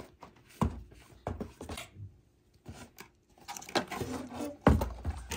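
Packaging being handled while unboxing: a cardboard box and a clear plastic blister pack knocking and rustling in scattered clicks and taps. There is a quiet pause in the middle, and the loudest knock comes near the end.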